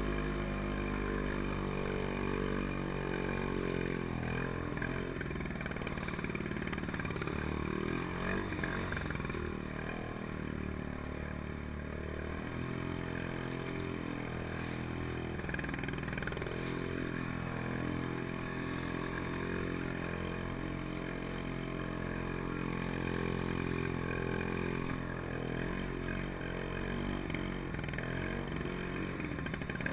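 The Villiers 9E two-stroke single-cylinder engine of a Pengor Penguin amphibious ATV running steadily while the vehicle is afloat, its pitch rising and falling a little.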